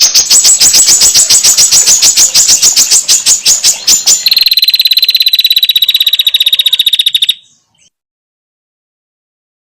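Female prenjak (prinia) rattling calls: a coarse, rapid rattle of about nine notes a second for about four seconds, then a thinner, higher, faster trill for about three seconds, then stopping abruptly.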